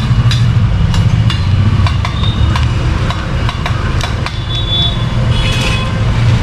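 Street-food griddle cooking: a steady low hum runs underneath, with irregular sharp metal clinks of steel ladles and utensils against the griddle and steel pots.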